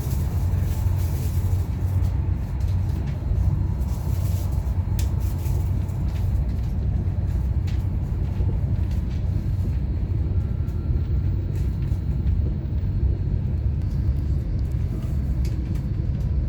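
Steady low rumble of a passenger train running at speed, heard from inside the carriage, with a few faint ticks over it.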